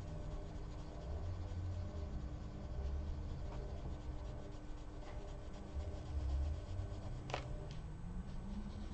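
Prismacolor coloured pencil rubbing on paper in short shading strokes. A sharp click about seven seconds in.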